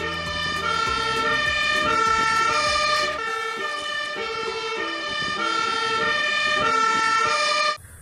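Fire engine siren sounding a two-tone call that alternates between a high and a low note. The truck's diesel engine rumbles under it for the first three seconds. It cuts off suddenly just before the end.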